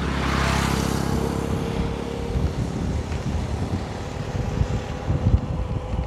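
Motorbike riding along, its engine humming low under wind buffeting the microphone, with a brief rush of noise in the first second.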